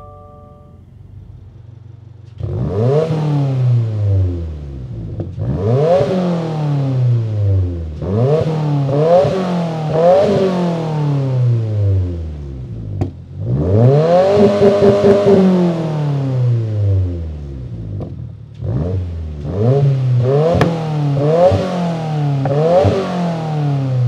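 Subaru WRX's turbocharged flat-four idling, then blipped through a series of free revs out of an ETS Extreme catback exhaust with no mufflers, each rev rising and falling back, with one held longer about two-thirds through. A few sharp cracks sound as the revs drop.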